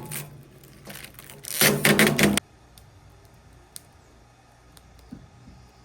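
Background music with a percussive beat that cuts off suddenly a little over two seconds in, followed by a few faint clicks.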